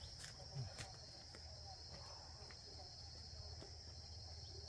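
Insects calling in a faint, steady, high-pitched drone, with a few soft clicks in the first second.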